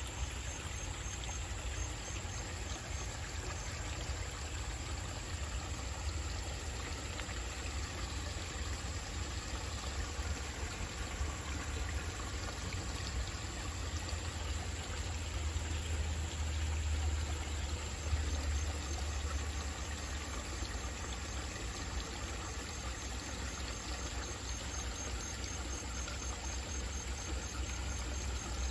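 Koi pond water running and trickling steadily, over a steady low rumble.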